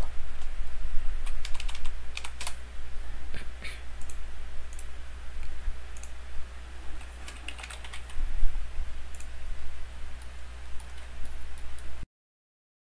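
Computer keyboard typing: irregular keystrokes and clicks over a steady low hum. The sound cuts off abruptly near the end.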